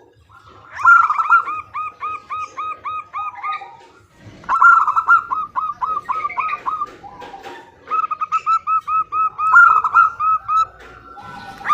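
Zebra dove (perkutut) calling in three bouts of fast, evenly repeated short notes, about seven a second, each bout two to three seconds long, with fainter lower calls between them. The calls are presented as a female calling to a male.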